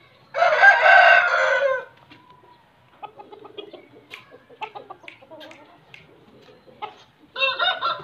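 Aseel rooster crowing: one loud crow of about a second and a half just after the start, and a second crow beginning near the end. Softer short clucks come in between.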